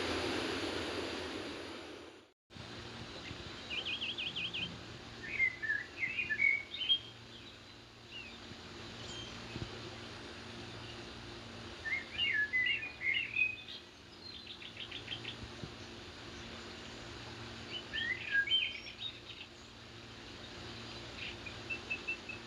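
Songbirds singing in short phrases of quick trills and warbling chirps every few seconds, over a faint steady background hum. A rushing noise fades out in the first two seconds before the birdsong begins.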